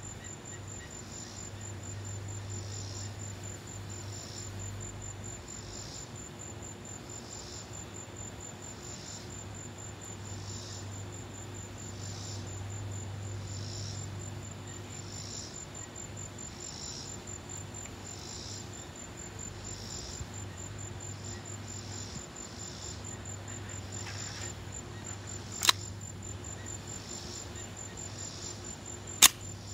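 Insects chirping steadily, a fast high trill with slower regular chirps under it. Near the end come two sharp metallic clicks from handling the Hi-Point C9 9mm pistol, about three and a half seconds apart.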